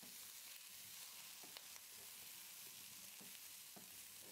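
Faint sizzle of boiled chickpeas sautéing in a little oil in a kadai as they are stirred with a wooden spatula, with a few soft clicks of the spatula against the pan.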